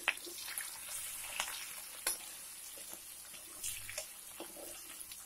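Green chillies and garlic sizzling in hot mustard oil in a kadhai: a steady frying hiss with scattered sharp pops and crackles.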